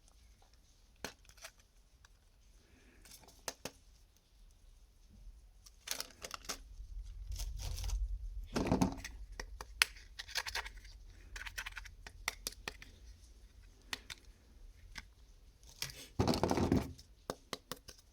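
Hands opening and handling toy packaging: scattered clicks and taps with a few short rustling, tearing bursts, the longest near the end.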